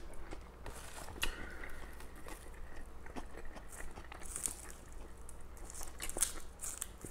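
Close-miked chewing of mi goreng fried noodles, with small wet mouth clicks and smacks. About four seconds in and again near the end come a few brief crisp rustles as chopsticks wrap the noodles in a sheet of seasoned laver.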